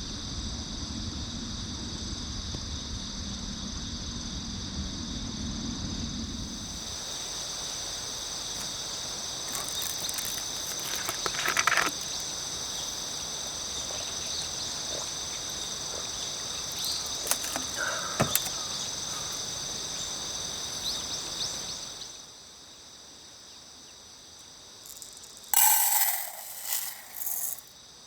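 Steady high trill of crickets and other insects, over a low rumble that fades after the first few seconds, with a couple of light clicks. Near the end the sound drops away quieter and then a few short, loud rasping bursts come.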